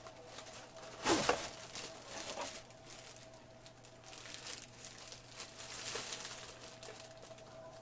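Packaging crinkling and rustling as a boxed desktop ring light is opened and its contents pulled out, with a louder crackling burst about a second in.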